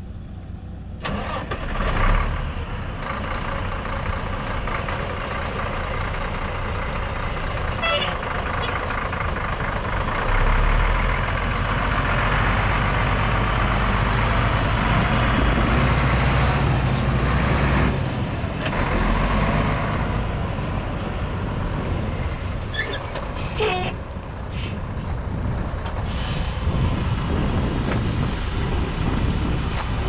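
1987 Peterbilt concrete mixer truck's diesel engine running steadily, louder for several seconds in the middle, with a few short hisses of air.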